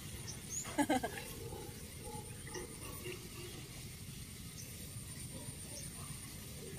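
A brief voice sound about a second in, then faint small splashes and knocks from a net fish trap being handled in shallow canal water, over a low steady rumble.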